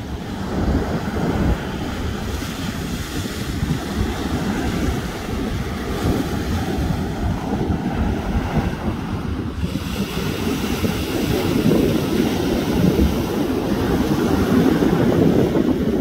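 Ocean surf washing onto a sandy beach, a steady rushing noise, mixed with wind buffeting the microphone as a low rumble.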